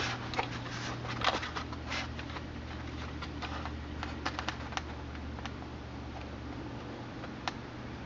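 Small irregular clicks and taps of hands handling a plastic HO-scale model freight car and a pin vise, while wire is pushed through holes drilled in the car. A steady low hum sits underneath.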